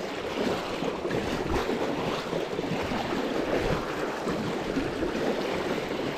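River current rushing and splashing over stones, a steady sound with small irregular splashes.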